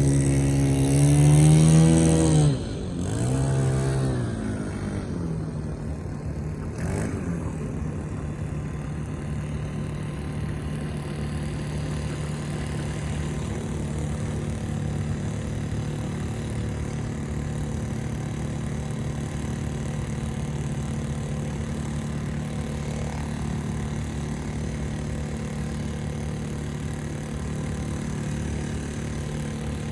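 Small propane-fuelled engine of a homemade RC boat running at high revs, its pitch creeping up, then throttled back sharply about two and a half seconds in. After a brief wavering in pitch it settles into a steady idle.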